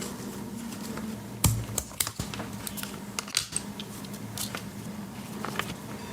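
Scattered small clicks and taps of a Victorinox Swiss Army knife being handled with its newly fitted lanyard attachment, the sharpest about a second and a half in.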